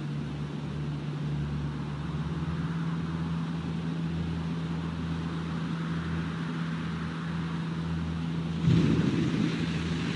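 Steady low hum and hiss from the soundtrack of footage of an underwater nuclear detonation. Near the end a sudden, louder low rumble sets in as the blast's water column erupts.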